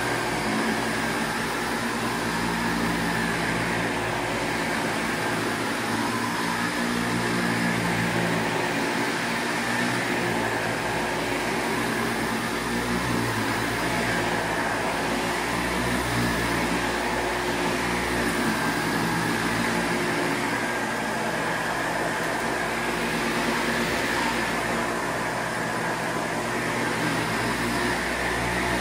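Windsor Versamatic upright vacuum cleaner running steadily, a constant motor hum with a high whine over it.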